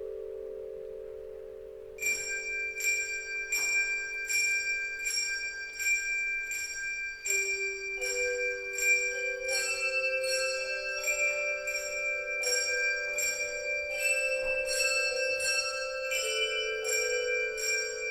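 Music bell and tone chime ensemble playing a slow melody. A held low chord rings on at first. From about two seconds in, a steady pulse of bright bell strokes comes in, two or three a second, over sustained tones that shift as the harmony changes.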